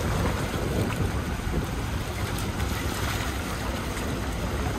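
Wind buffeting the microphone aboard a yacht under way, with a steady rush of water and a low rumble.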